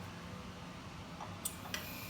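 Mostly quiet, with a couple of small clicks, then near the end an aerosol can of shaving cream starts spraying with a steady hiss.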